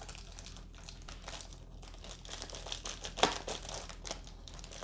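Parcel packaging being handled and opened: irregular crinkling and rustling, with one sharper crackle about three seconds in.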